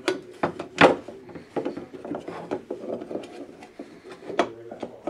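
Aluminium parts of an LED street light fitting knocking, clicking and scraping together as the arm tube is handled and fitted onto the housing, with a louder knock about a second in and another near the end.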